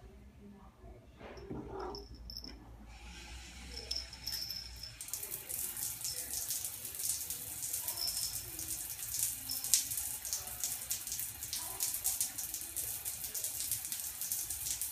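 Shower turned on: the spray starts as a soft hiss about three seconds in and becomes a full, steady spray of water hitting the tiled stall about two seconds later.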